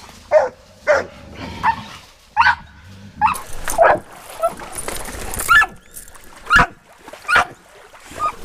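Hunting hounds barking repeatedly, about ten sharp barks at roughly one a second.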